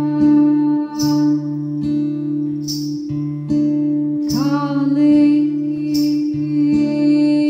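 A woman singing long held notes over an acoustic guitar strummed slowly and evenly, about one strum every second and a half; about halfway through her voice slides up in pitch.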